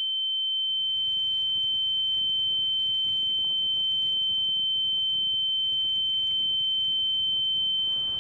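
A single steady, high-pitched electronic beep tone, held unbroken at one pitch, over faint low noise.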